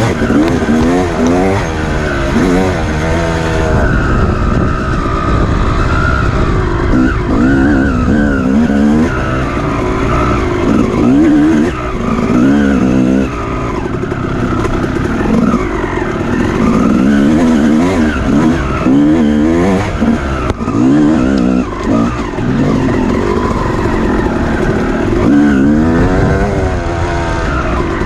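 Off-road racing motorcycle engine running hard, its pitch rising and falling again and again as the throttle is opened and closed, over a steady low rumble.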